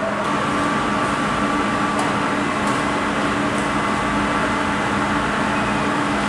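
Steady machinery hum with a few level tones running through it, like a ventilation fan or running machinery.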